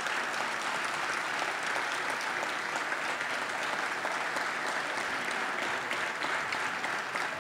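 Theatre audience applauding steadily, a dense crackle of many hands clapping.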